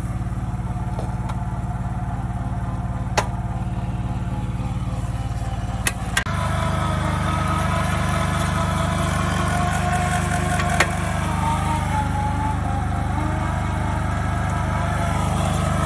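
Homemade well-drilling rig running steadily: electric hoist motors turn the auger through a chain and sprocket, a continuous machine drone. It grows louder and rougher about six seconds in, with a few sharp clicks along the way.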